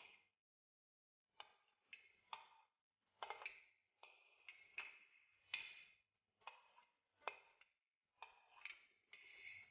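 Faint, irregular clinks and taps of a metal spoon against a glass bowl and a serving plate as chopped vegetables are scooped and mixed. Some taps carry a short ring.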